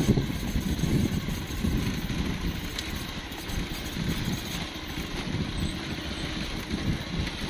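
Motorcycle engine running, a steady rough low rumble.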